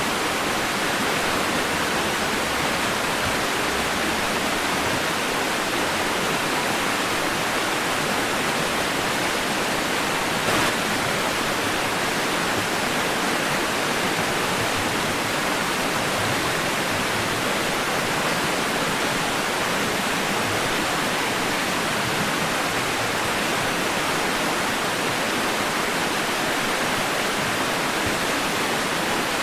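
Steady white noise for soothing a baby to sleep: an even, unbroken hiss like rushing water, with a single faint click about ten seconds in.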